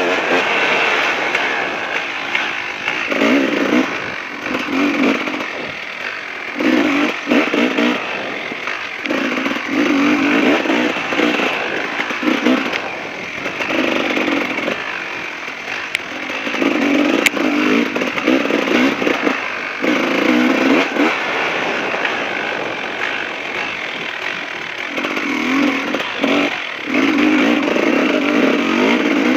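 KTM 380 two-stroke dirt bike engine revving in repeated bursts, the throttle opened and shut every second or two as the bike is ridden hard.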